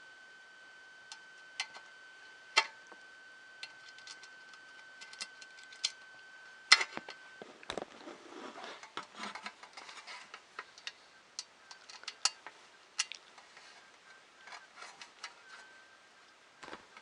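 Irregular clicks and taps of small plastic and metal 3D-printer kit parts being handled and fitted together by hand. A faint steady high tone runs under them and stops about seven seconds in.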